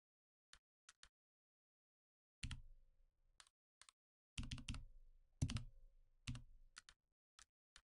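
Clicks and key presses on a computer mouse and keyboard. A few light, sharp clicks come first. From about two and a half seconds in there are louder clusters of clattering clicks, each with a dull thump under it.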